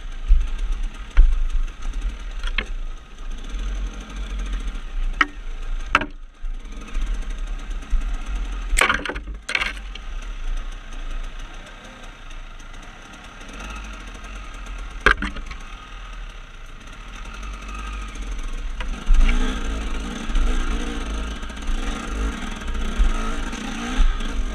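KTM 300 two-stroke enduro motorcycle running on a rocky trail, picked up through a helmet camera with a steady deep rumble. Sharp knocks and clatter from the bike hitting rocks come now and then. About three-quarters of the way through, the engine is revved harder.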